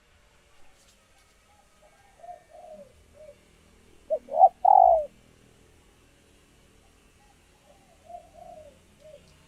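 Female spotted dove cooing, recorded in egg-laying condition. There are soft scattered coos, and about four seconds in a loud phrase of two short notes and then a longer falling coo.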